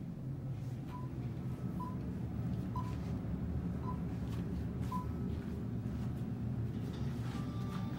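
Steady low machinery hum inside a ship's passenger cabin, with five short high beeps about once a second. Music comes in near the end.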